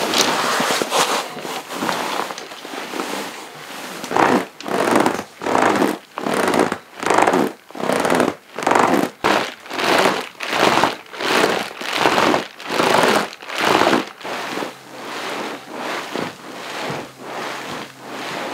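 Therm-a-Rest NeoAir XLite air sleeping pads, the new NXT and the older model, crinkling as they are pressed again and again on a closed-cell foam roll mat over a Tyvek sheet: a steady rustle at first, then rhythmic crinkles about one and a half a second, then softer crinkles near the end with the foam mat laid on top of the pad. The tester puts the louder crinkle with the foam underneath down to friction against the Tyvek sheet.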